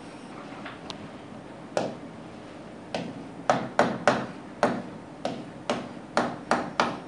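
A stylus tapping and scratching on an interactive whiteboard screen as letters are written: a string of sharp taps, one at a time at first, then about two a second from halfway on.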